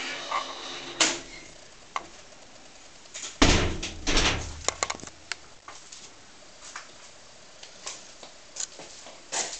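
A wooden door thudding about three and a half seconds in, followed by a quick run of sharp clicks and knocks, with scattered small knocks before and after.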